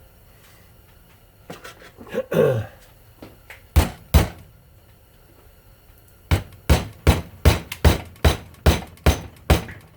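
Hammer striking a tool wedged into a ceiling fan motor's stator to pry up its copper windings: two blows, a pause, then an even run of about ten blows, roughly two and a half a second.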